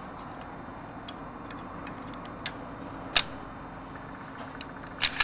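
Sharp metallic clicks from an XCR rifle's parts being fitted back together: one loud click about three seconds in and two close together near the end, with fainter ticks between them over a steady low hum.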